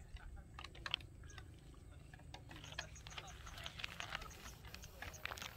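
Irregular small clicks and ticks, more frequent in the second half, over a steady low rumble.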